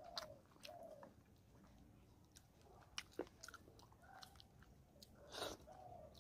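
Faint close-up mouth sounds of a man chewing rice and fish curry eaten by hand: wet lip smacks and sharp clicks scattered through the chewing.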